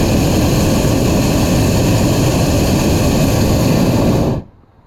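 Hot air balloon's propane burner firing in one long, loud, steady blast that cuts off sharply about four and a half seconds in. The heat tightens the envelope so that the parachute vent at the top seals.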